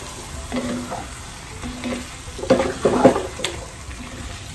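Pork, tomato and red wine sizzling in a pot while a wooden spatula stirs the mixture, scraping and knocking against the pot. The loudest scrapes come between two and a half and three seconds in, with a sharp click just after.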